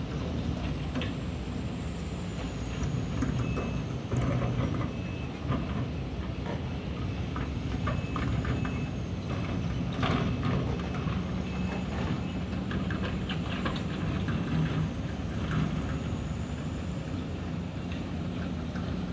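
Sumitomo SH350-6 hydraulic excavator working bauxite ore, its diesel engine running steadily under irregular clanks and knocks of the bucket and material. A series of short high beeps sounds through the first half.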